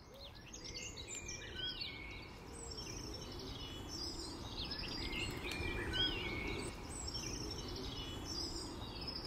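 Several small songbirds singing and chirping over one another, with short quick whistles and chirps throughout, over a steady low background rumble.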